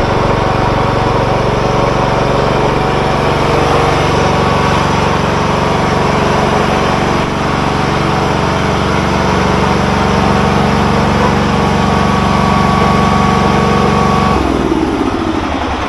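John Deere riding lawn mower engine running steadily. Near the end it is shut off, and the pitch drops as the engine winds down.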